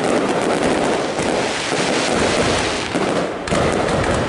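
Fireworks going off in rapid succession: a dense, continuous crackle of bursts and bangs, easing briefly about three seconds in.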